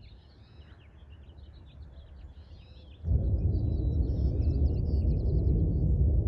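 Small birds chirping over quiet outdoor air. About three seconds in, a steady low rumble starts abruptly and takes over, with the chirping still going above it.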